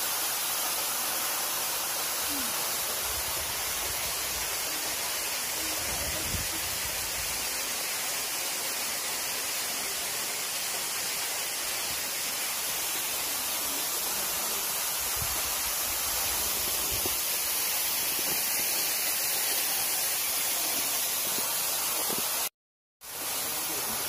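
Steady rushing of falling water from a waterfall, with a few low rumbles on the microphone; the sound cuts out to silence for about half a second near the end.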